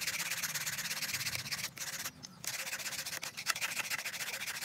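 Sandpaper wrapped around a stick rubbed rapidly back and forth against a wooden slingshot fork: steady sanding strokes, with a brief pause about two seconds in.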